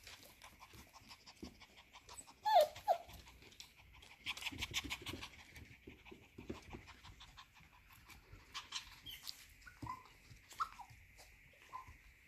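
F1B cockapoo puppies at play: one short falling yelp about two and a half seconds in, then a stretch of quick panting, and a few small high whimpers near the end.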